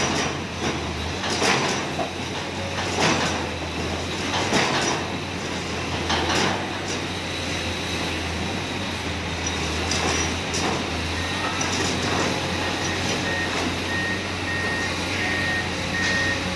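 Komatsu PC210 hydraulic excavator's diesel engine running steadily under work, with heavy metallic clanks and knocks through the first several seconds. From about two-thirds of the way in, a machine's warning alarm beeps over and over at a high pitch.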